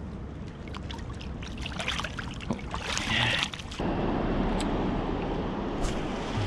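Water splashing and trickling as a freshly caught asp is released by hand into the river, with a louder splash about three seconds in. Just before four seconds the sound switches abruptly to a steady rushing noise of flowing river water.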